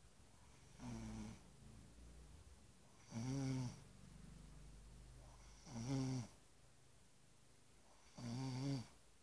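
A person snoring: four snores about two and a half seconds apart, each lasting about half a second, with faint breathing noise between them.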